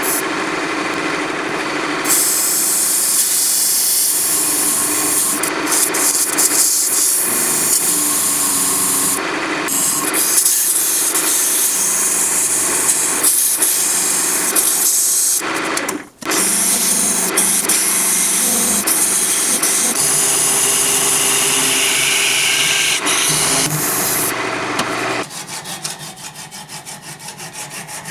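Wood lathe turning an apple wood blank while a parting tool cuts into it: a loud, steady cutting noise, broken by a brief pause about halfway. Near the end it drops to quieter, regular strokes of a handsaw cutting through the last of the wood.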